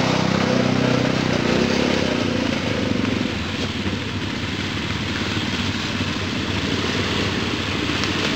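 Quad bike (ATV) engines: a nearby quad's engine note fades away over the first couple of seconds, then more quads run at a steady, lower level as they come up the trail.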